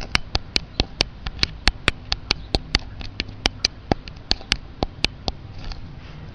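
A quick, irregular run of sharp clicks or taps, about four a second, that stops about five seconds in.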